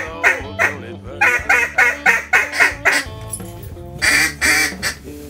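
Duck quacking: rapid runs of loud quacks, several a second, with a pause near the middle and a last short run about four seconds in.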